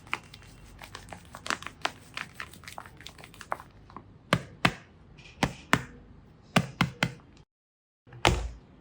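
Irregular sharp taps and soft crinkles of hands handling a paper-and-tape squishy. Louder paired clicks come in after about four seconds, then a brief dead gap and one last louder tap near the end.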